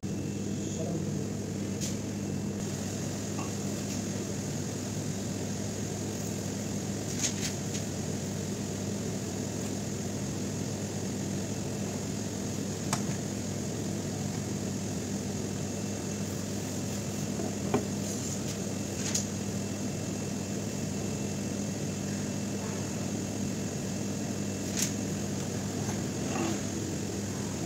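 Steady low electrical hum with a faint high hiss, and a few light clicks and taps scattered through it as the LED bulb and soldering iron are handled during the repair.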